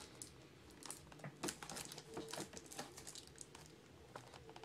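Trading-card hobby box being worked open by hand without a cutter: faint scattered crinkles and small taps of its cardboard and wrapping under the fingers.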